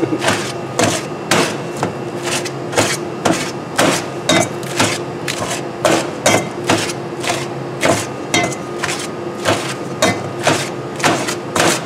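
Salad being chopped in a stainless steel bowl: a blade chopping through lettuce and vegetables and knocking on the metal bowl in a steady rhythm of about two strokes a second.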